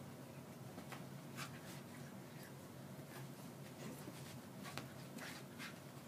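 Quiet scuffling of a Shiba Inu and a cat play-fighting on carpet: short, scratchy scuffs and rustles come every half second or so over a low steady hum.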